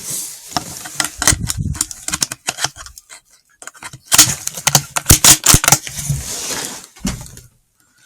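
Raccoon dog at the bait, making rapid crackling, crunching clicks with rustling, in two spells with a short pause between them.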